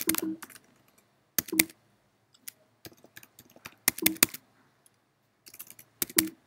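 Keystrokes on a computer keyboard: several short bursts of clicks with pauses between them.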